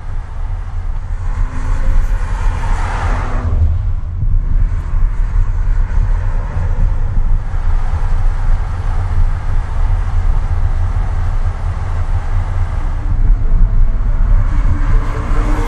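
Exhaust of a 2018 Audi RS4 Avant's 2.9-litre twin-turbo V6 as the car drives by: a deep, loud rumble with a rushing pass-by about two to three seconds in and again near the end, where the engine note climbs.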